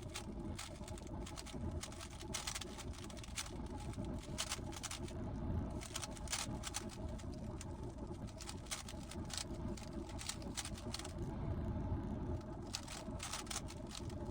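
GAN 15 speedcube being turned by hand in quick irregular runs of plastic clicks and clacks, over a steady low hum.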